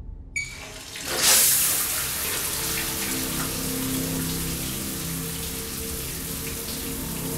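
Shower running: after a click about half a second in, water bursts from the shower head just after a second, swells quickly and settles into a steady hiss. Low steady tones sit underneath from about three seconds on.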